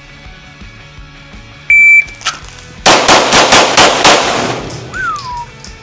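Electronic shot timer beeps once, then a pistol fires six shots in quick succession over about a second and a half, two on each of three targets.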